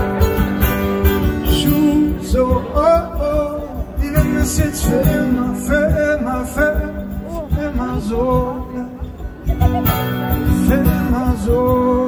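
Live band music from a concert stage: guitar and a steady beat, with a voice singing the melody.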